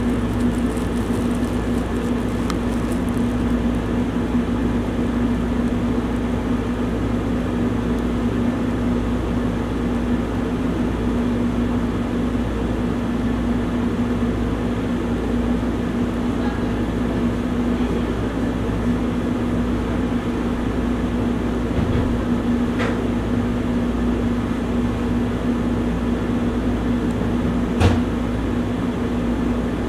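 Steady machine hum with a constant low tone under an even hiss, and a brief click near the end.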